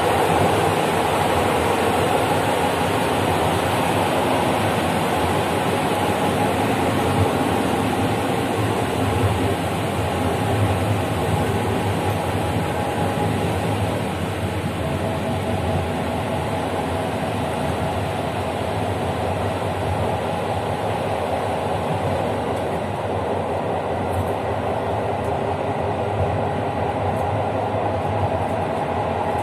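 Passenger train running along the track, heard from its rear: a steady rumble of wheels on rails that eases a little about halfway through.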